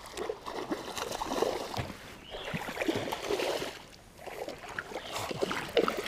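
A hooked smallmouth bass thrashing and splashing at the water's surface as it is played on the line, in irregular bursts of splashing.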